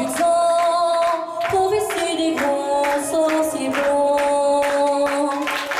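A woman singing held notes into a microphone over a backing track with a steady beat.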